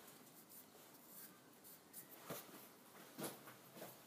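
Near silence, with a few faint clicks and rubs from hands handling a caliper at the lathe.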